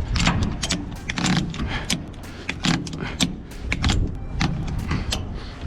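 Trailer wheel-strap tie-down being cranked tight: a run of sharp metallic clicks and clanks from the tensioner as the strap is drawn down over the truck's tire.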